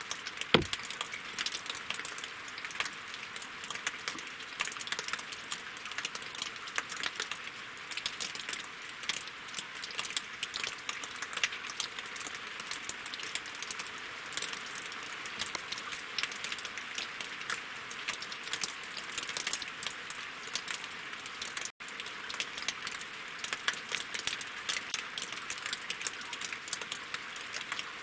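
Rain falling on a lake and on logs: a dense, steady patter of many drops. One louder low thud about half a second in, and the sound cuts out for an instant about three-quarters of the way through.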